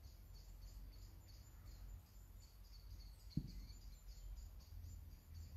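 Faint outdoor ambience: a high chirp repeating evenly about three times a second over a low rumble, with one soft knock about three and a half seconds in.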